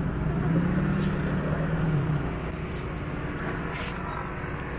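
Street traffic noise with a vehicle's low engine hum that stops about two seconds in, and a few faint crinkles of a plastic bag as watermelon is bagged.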